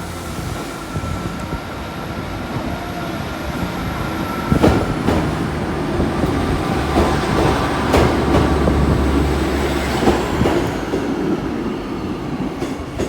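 Passenger train pulling out of the station, its wheels clacking sharply over rail joints several times from about halfway in. A low engine drone swells for a few seconds in the middle.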